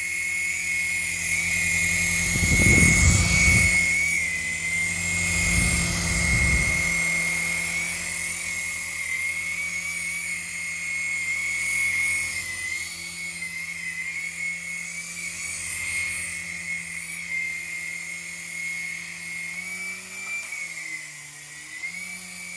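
Small coaxial toy RC helicopter in flight: its electric motors and rotors give a steady high whine that wavers slightly as the throttle shifts. Two short bursts of low rumble come a few seconds in.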